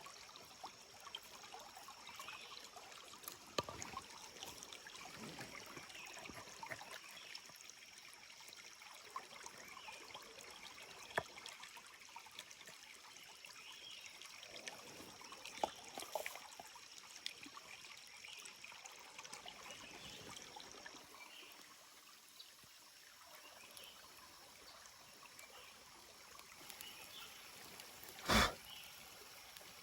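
Small stream trickling and babbling steadily, with scattered faint clicks and one short, louder burst of noise near the end.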